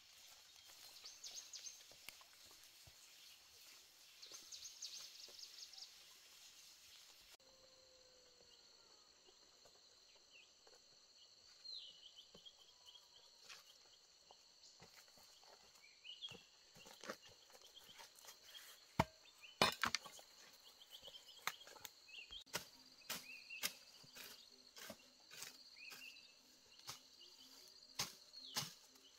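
Footsteps on a leaf-strewn forest path, then rustling, crackling and snapping of vegetation as weeds and undergrowth are pulled by hand, the loudest sharp cracks a little before two-thirds of the way in and many more near the end. Behind it insects buzz faintly and high, with a few short falling chirps.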